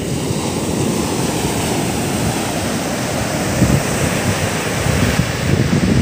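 Surf on a rough sea: waves breaking and foaming up the beach, the wash swelling at the start and staying loud, with wind buffeting the microphone.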